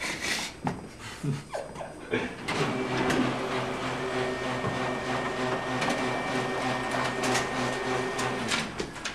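Office laser printer running steadily for about six seconds as it prints a page, then stopping near the end. A few knocks come before it starts.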